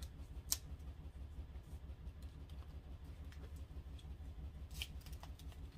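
Light handling sounds as a new handbag is turned over: a sharp click about half a second in and a smaller one near the end, over a steady low hum.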